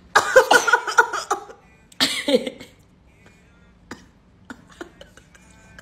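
A person coughing in a quick run lasting about a second and a half, then once more about two seconds in, set off by a nasal swab test. Faint clicks follow.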